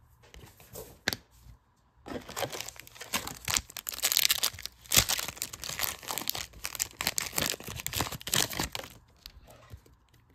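Foil wrapper of a Panini Donruss Optic basketball card pack crinkling as it is handled and torn open. A dense run of crackling starts about two seconds in and lasts about seven seconds, after a few light clicks.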